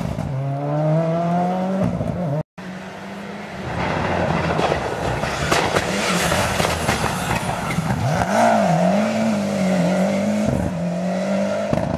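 Rally cars driven flat out on a stage. The first accelerates away with its engine note climbing through gear changes. After a brief break, a second car's engine grows loud as it approaches and passes, and its pitch rises and falls as the driver works the throttle and gears.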